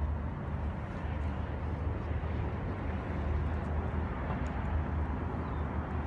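Seaside ambience: a steady low rumble of wind on the microphone over the even wash of choppy water.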